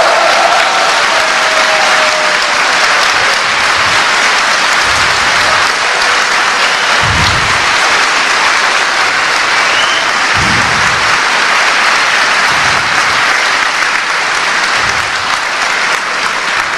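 Large audience applauding and cheering, a shouted cheer fading out in the first couple of seconds, then steady clapping.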